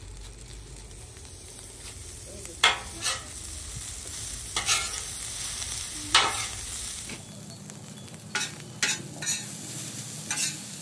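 Butter and cold rice sizzling on a hot Blackstone flat-top griddle, with a metal spatula clacking and scraping against the steel surface several times as it chops and spreads the rice.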